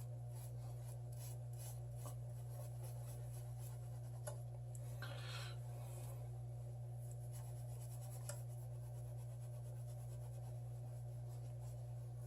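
Faint, repeated scrubbing and scraping strokes against the Samsung Galaxy S7's front glass, working at bonded screen glue that the solvent won't dissolve, over a steady low hum. One longer, harsher scrape comes about five seconds in.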